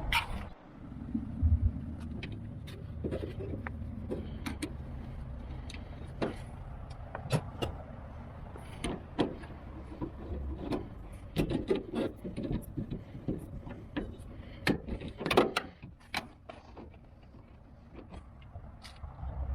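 Irregular clicks and knocks of a car door lock and metal door parts being handled and fitted, over a low rumble.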